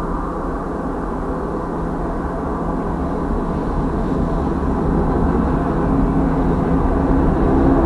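Diesel freight locomotive approaching: a steady low engine rumble with a few held tones, growing louder.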